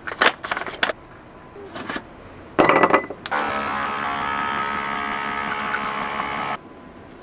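Clicks as an Outin portable espresso machine is assembled with a capsule, and a clink about two and a half seconds in. Then the machine's water pump runs with a steady hum for about three seconds while it extracts the espresso, and cuts off suddenly.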